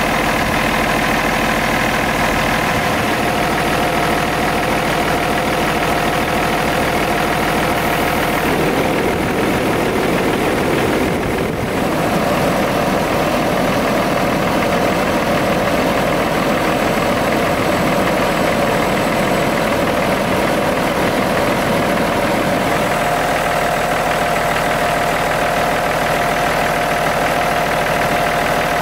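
Cummins ISX inline-six diesel engine in a Peterbilt 386 idling steadily.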